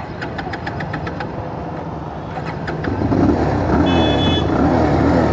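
Bajaj Pulsar 220F's single-cylinder engine idling, then revved as the motorcycle pulls away about three seconds in. A brief high beep near the end.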